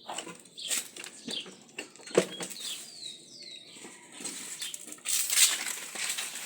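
Birds: a few short falling chirps about three seconds in, over irregular rustling and clicks that swell into a louder rustle for the last second and a half.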